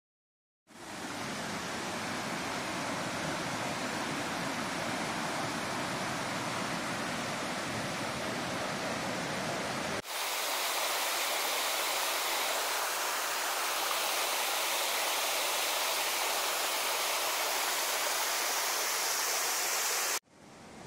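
Steady rush of water pouring over rocks in a shallow stream below a waterfall. There is a cut about ten seconds in, after which the rush sounds brighter and hissier.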